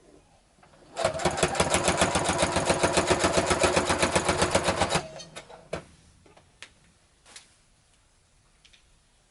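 Sewing machine stitching at a fast, even pace for about four seconds, then stopping, followed by a few light clicks.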